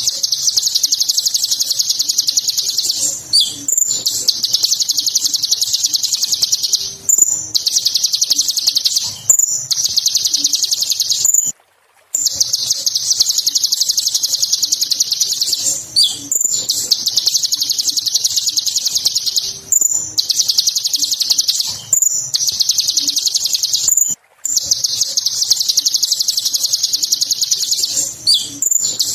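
A Kolibri Ninja sunbird singing a loud, fast, high-pitched chattering trill in bouts of a few seconds, with short breaks and occasional sweeping notes between them, and two brief silences.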